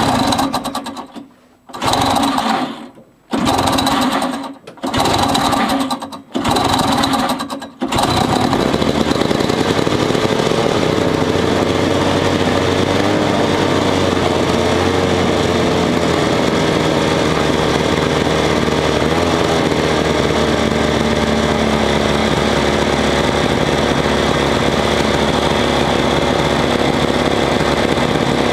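1970 Ski-Doo Olympic 399cc two-stroke twin snowmobile engine cold-started by its pull rope: a string of short bursts, one per pull, then it catches about eight seconds in and keeps running steadily, its pitch rising and dipping slightly.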